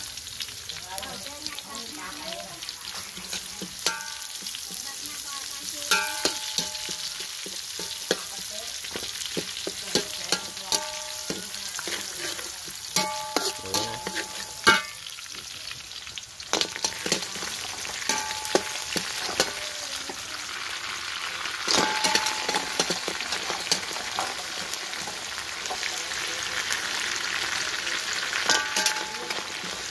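Chopped garlic and spring onions sizzling in hot oil in a metal wok. A metal spatula stirs them, scraping and clinking against the pan, and some strikes ring briefly. The sizzle gets louder about halfway through.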